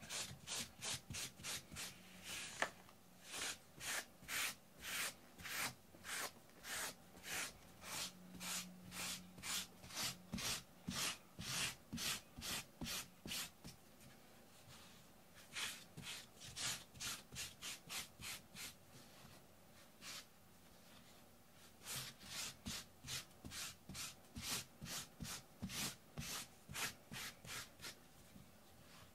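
A brush stroked firmly back and forth over carpet to pull out embedded cat hair: rhythmic rasping strokes about two a second, pausing briefly twice.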